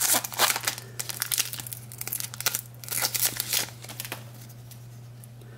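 Plastic wrapper of a trading-card pack being torn open and crinkled by hand: dense crackling for about four seconds, dying away near the end.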